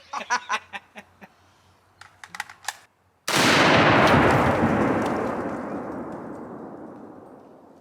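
A few short clicks, then about three seconds in a sudden, very loud blast from a small charge of binary exploding target (Southern Thunder) set off by a rifle shot. Its rumble dies away slowly over about four seconds.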